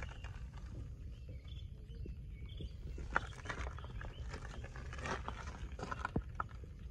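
Footsteps crunching on gravel, irregular and scattered, over a steady low rumble.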